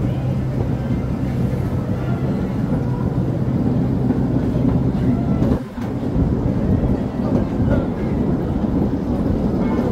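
Miniature ride-on train running along its track: a steady rumble of wheels on rail, with a brief dip in loudness a little past halfway through.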